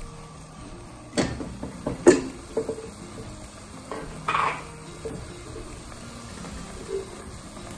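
Cookware being handled by a pot of simmering water: two sharp metal clinks about a second and two seconds in, a few lighter taps, and a short scrape about four seconds in.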